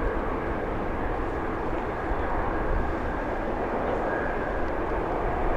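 Jet airliner engines at takeoff power, a steady broad rumble.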